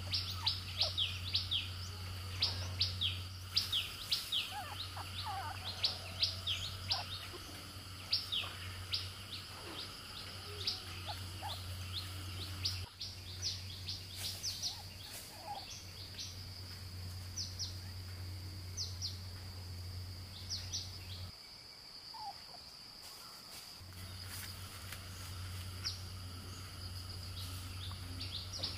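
Wild birds chirping in many short, quick notes, busiest in the first half, over a steady high-pitched insect drone.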